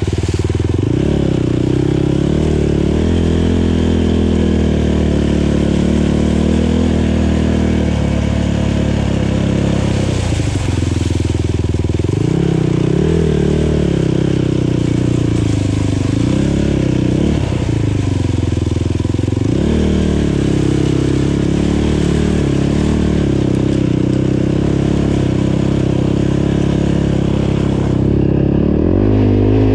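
Kawasaki KFX450R quad's single-cylinder four-stroke engine running under throttle. Its pitch rises and falls again and again as the rider accelerates and eases off.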